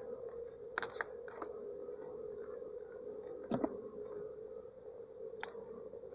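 Honeybee swarm buzzing steadily, a continuous wavering hum, with a few sharp clicks and knocks of handling about a second in, at three and a half seconds and near the end.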